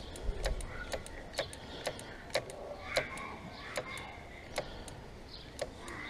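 Front brake lever of a Suzuki GSX-R250 being pumped by hand after a pad change, clicking sharply about ten times, roughly every half second and slower toward the end. The pumping pushes the caliper pistons back out to bring the new pads up against the disc until the lever has bite.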